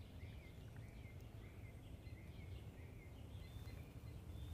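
Faint birdsong: short repeated chirping notes, a couple a second, over a low steady outdoor rumble.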